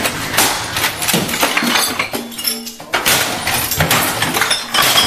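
Glass clinking and shattering: a dense run of sharp crashes and tinkling that carries on through the whole stretch.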